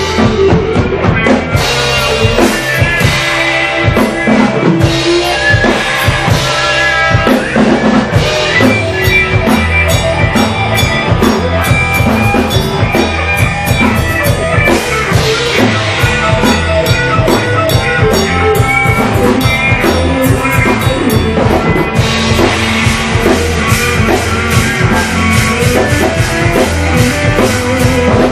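A rock band playing together: a drum kit with Sabian cymbals, electric guitars and bass guitar, the drums keeping up a steady beat of kick and cymbal hits under the guitars.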